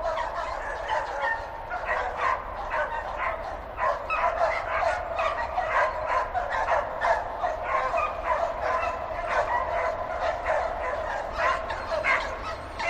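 Dogs barking and yapping in quick, overlapping barks, several calls a second.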